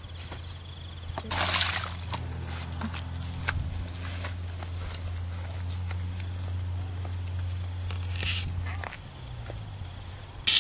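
Insects trilling steadily over a low steady hum, with two short noisy rustles, one about a second and a half in and another near eight seconds.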